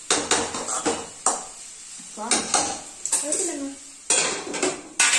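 A metal spoon scraping and knocking in a steel pan as a dry vegetable stir-fry is turned over, with a light sizzle, then a steel lid clattering onto the pan about four seconds in, with a second loud clank just before the end.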